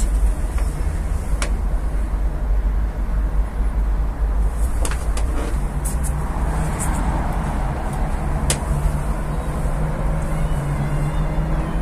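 Steady rumble of city road traffic through an open window, with a few sharp clicks.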